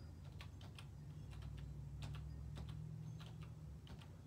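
Faint irregular light clicks, like typing on a keyboard, a dozen or so spread unevenly, over a low steady hum.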